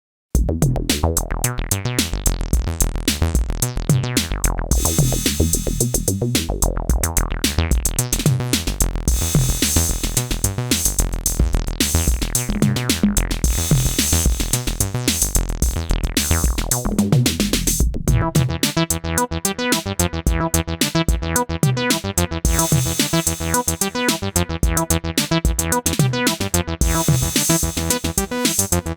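Acid bass line from an Elektron synthesizer over a drum machine beat. The bass filter sweeps slowly up and down for the first two-thirds. About two-thirds through, the tone turns steadier and thinner in the low end.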